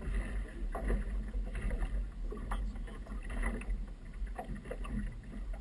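Wind buffeting the camera microphone with a low rumble, while choppy river water laps and slaps irregularly against the hull of a small outboard-powered boat.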